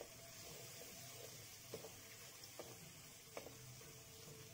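Faint sizzling of shrimp and squid frying in a metal wok, with a few soft taps and scrapes of a wooden spatula against the pan as it stirs.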